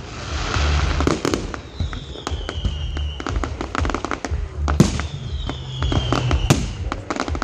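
Fireworks display: aerial shells bursting in a fast run of bangs and crackles. A high whistle falls in pitch twice, about two and five and a half seconds in.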